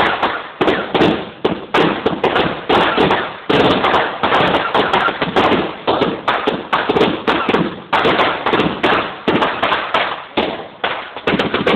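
Fireworks going off in a rapid, unbroken run of loud bangs, about three or four a second, each dying away quickly before the next.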